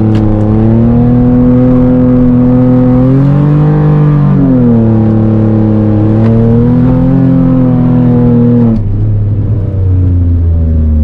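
Nissan 350Z's 3.5-litre V6 held high in the revs through a drift, its pitch sagging and climbing back a few times, then dropping off suddenly to lower revs about nine seconds in.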